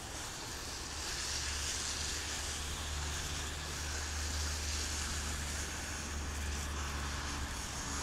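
Snowstorm wind rushing over the phone's microphone: a steady low rumble under a hiss.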